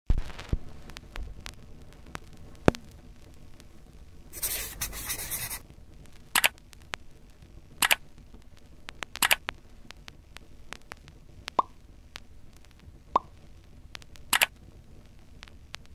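Scattered short clicks and taps at irregular intervals, with a burst of hiss lasting about a second a little over four seconds in.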